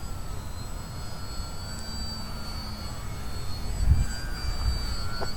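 Brushless electric motor and propeller of a small foam RC 3D airplane whining in flight, its high pitch shifting a little as the throttle changes. A low rumble runs underneath, with a loud low thump about four seconds in.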